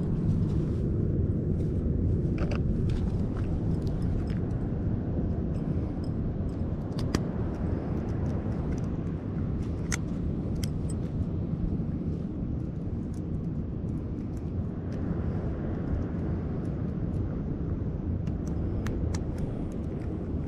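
Steady low outdoor rumble throughout, with scattered light clicks and taps as small fishing tackle (pliers, a lure and its snap) is handled.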